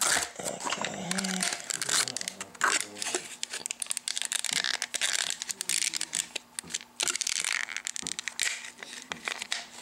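Thin clear plastic packaging crinkling and crackling as fingers work a small toy figure out of its plastic bag, with many quick snaps and rustles.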